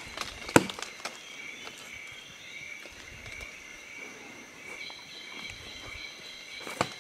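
An axe chopping into a living tree trunk to cut a climbing foothole: a sharp stroke just after the start and another near the end. Between the strokes the forest keeps up a steady, high-pitched chorus of several held tones.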